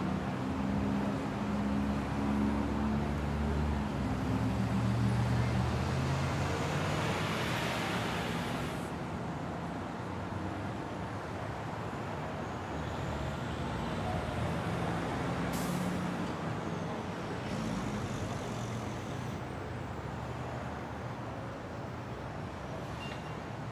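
City street traffic: a heavy vehicle's engine runs close by, its noise building over the first eight seconds and dropping away at about nine seconds, then a steady background of road traffic.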